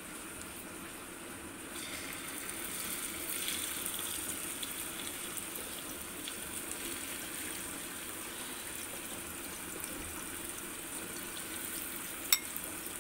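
Prawns sizzling as they are laid one by one into hot oil in a frying pan; the hiss picks up about two seconds in and stays steady. A single sharp click comes near the end.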